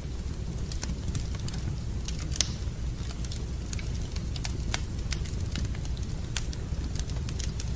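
Wood fire burning in a fireplace: irregular sharp crackles and pops over a steady low rumble, with one louder pop about two and a half seconds in.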